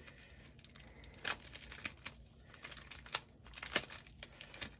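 Thin clear plastic sleeves of nail sticker sheets crinkling in irregular crackles as they are handled and opened, starting about a second in.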